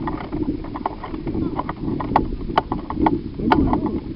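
Footsteps and the clatter of carried gear on hard ground: irregular sharp clicks and knocks, two or three a second, over a low rumble of handling noise.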